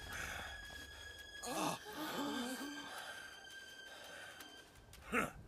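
A cartoon dog's short, breathy vocal sounds: one about a second and a half in that trails into a low wavering tone, and a brief second one near the end. Faint sustained music tones sit underneath.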